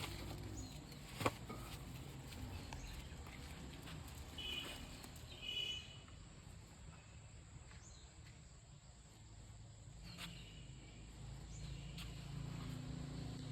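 Faint outdoor background noise with a single sharp click about a second in and two short high chirps a little after the middle.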